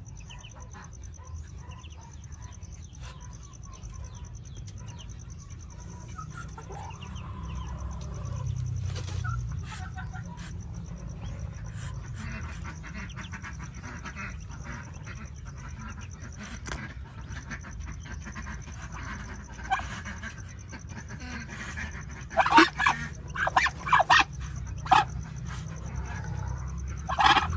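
Muscovy duck hen with her newborn ducklings: faint short peeps and calls throughout, then a run of loud, sharp bursts about 22 seconds in.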